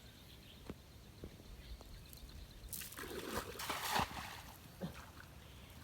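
Water splashing and sloshing during net fishing, loudest about three to four seconds in, with a few small clicks before it.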